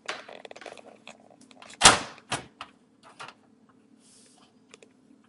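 Handling noises as a motherboard is shifted into place over the standoffs of a computer case: a scraping rustle, scattered light clicks, and one loud knock about two seconds in.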